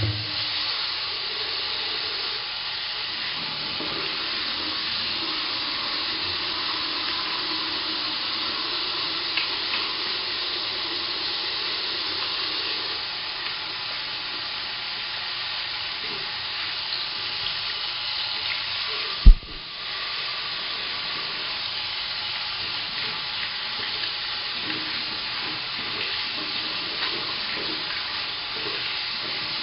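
A running water faucet gives a steady hiss of flowing water, standing in for a fire hose spraying. About two-thirds of the way through, one sharp, loud thump stands out above the water.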